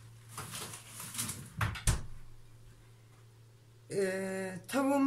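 Handling noise: a rustle and a couple of sharp knocks, then, near the end, a woman's drawn-out hesitation sound as she starts to speak, over a low steady hum.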